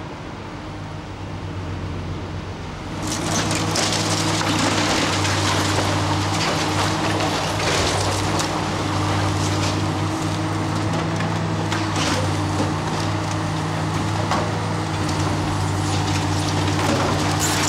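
A tracked excavator's diesel engine runs steadily under load while it tears into a brick and timber building, with continuous crunching, cracking wood and falling masonry. The racket starts about three seconds in; before that there is only a quieter low hum.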